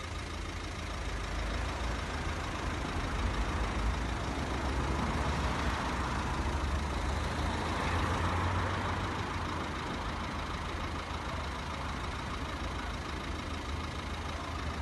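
Road traffic at a level crossing: vehicle engines rumbling and tyre noise, swelling as traffic passes about halfway through and then easing off.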